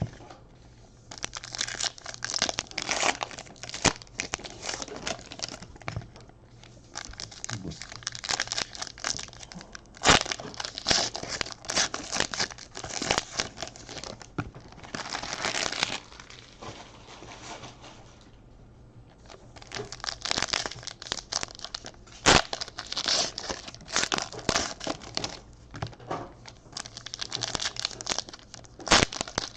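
Baseball card pack wrappers being torn open and crinkled, in bursts with short pauses, with a couple of sharp taps.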